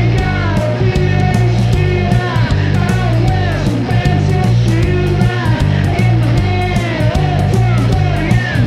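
Background rock music with electric guitar, bass and a steady drum beat.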